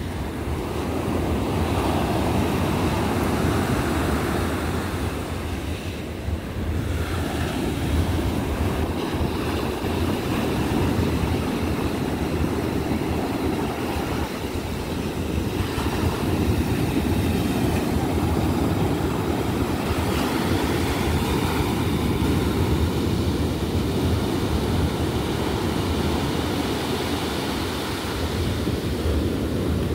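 Sea surf breaking and washing up onto a sandy beach, a steady rushing that swells and eases. Wind buffets the microphone with a heavy low rumble.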